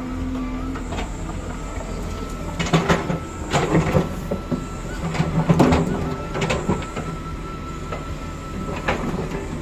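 Excavator working: the diesel engine runs steadily under a held hydraulic whine, with bursts of metallic clanking and scraping about five times as the machine works.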